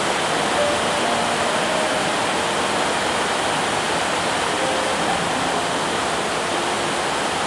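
Heavy rain falling steadily on a corrugated metal roof overhead and on the yard, with runoff pouring off the roof edges.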